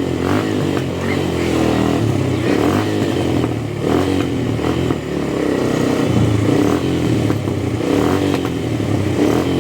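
Motorcycle engine running under way, its pitch rising and falling as the throttle opens and closes.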